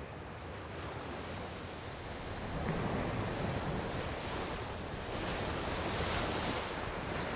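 Small waves breaking and washing up on the shore, the surf growing louder about three seconds in.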